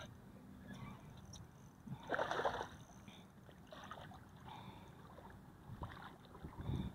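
Faint water sounds around a small boat, with a few soft splashes; the loudest comes about two seconds in.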